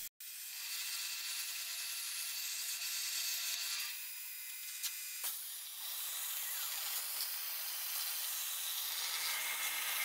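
CNC plasma cutter cutting steel plate: the arc and air jet make a steady hiss, with a faint hum under it in the first few seconds. The hiss dips briefly about four seconds in, and there is a single click about a second later.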